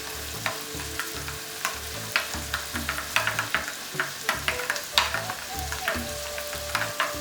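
Curry masala sizzling in hot oil in a pan while it is stirred, with a spoon clicking against the pan several times a second.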